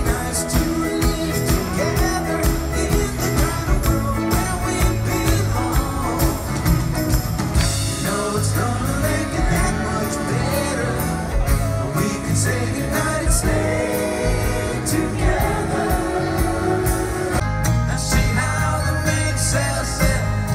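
A large live band plays a song with lead singing, heard from within the audience at an open-air concert.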